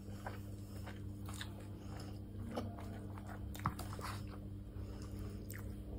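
Faint chewing of a person eating rice pulao, with a few small clicks, over a steady low hum.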